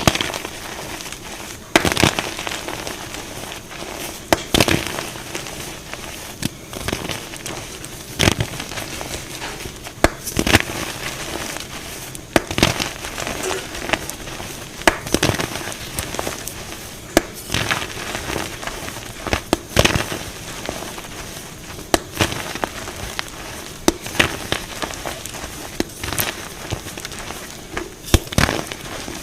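Dyed gym chalk blocks being crushed: a sharp crunch about every two seconds, with fine crumbling and crackling of the powdery chalk between them.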